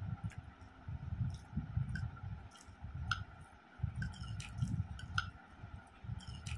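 Close-up eating sounds: a steel spoon clinks and scrapes against a small steel bowl several times, between soft chewing noises.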